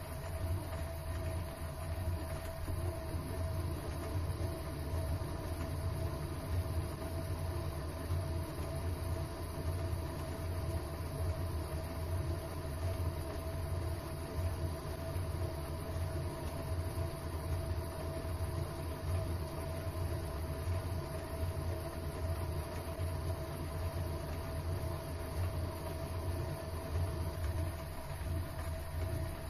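Mini lathe running steadily under power feed, its leadscrew driving the carriage through a thread-cutting pass. It makes a continuous mechanical hum with a constant whine.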